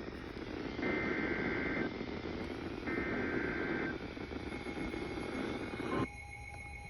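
Weather radio receiver hissing with static, broken by two shrill digital data bursts of about a second each, the SAME header that opens a severe thunderstorm warning broadcast. About six seconds in the static cuts off suddenly, leaving a faint steady tone.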